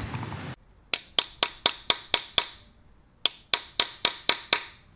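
Socket ratchet clicking on a bolt of a VR6 engine block: two runs of about seven sharp metallic clicks, roughly four a second, with a short pause between them.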